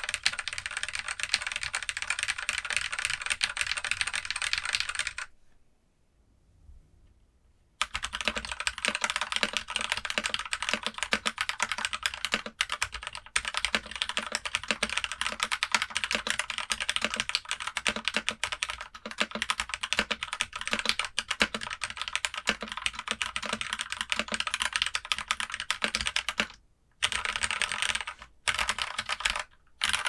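Lubed Cherry MX Black linear switches in a keyboard with a silicone plate dampener and bottom foam. For about five seconds a few keys are pressed rapidly and continuously. After a gap of about two seconds comes steady typing across the board, broken by short pauses near the end.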